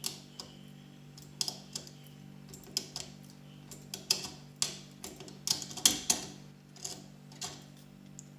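Prodecoder Automatic decoder clicking inside a Juwel 4x4 safe lock as tension is held on it: sharp, irregular clicks, some in quick clusters, the loudest a little past the middle. The clicks are the sign that the decoder is working on the pins. A faint steady hum runs underneath.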